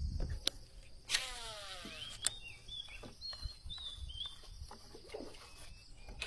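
A fishing reel spins after a sharp snap about a second in, its whir falling in pitch as it slows over about a second, as when a lure is cast. Short high bird chirps follow over the next few seconds, with a few light clicks.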